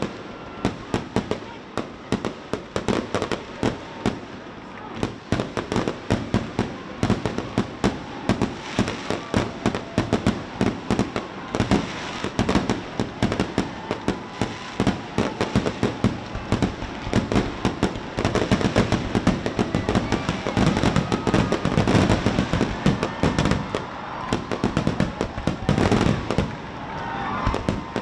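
Fireworks display: a dense, continuous barrage of rapid bangs and crackles throughout.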